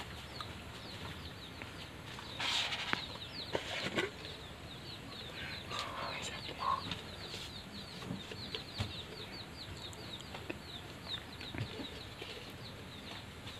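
Chickens nearby: chicks peeping in a continuous run of short, high, falling chirps, several a second, with a brief rustle of movement about two and a half seconds in and a few light knocks.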